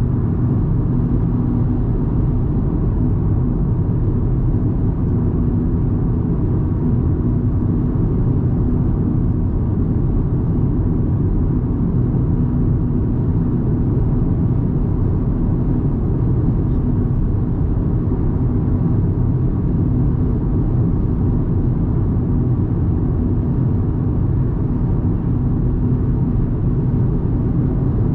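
2024 Audi A3 Sportback's 1.5 TFSI four-cylinder turbo petrol engine and tyres at a steady cruise: a constant low drone over road rumble, holding the same pitch throughout.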